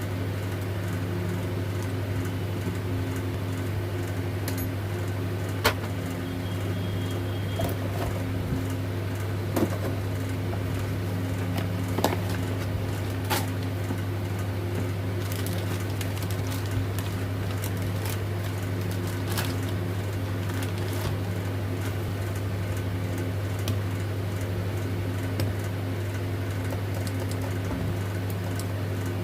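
A steady low hum throughout, with about a dozen sharp clicks and taps scattered through it.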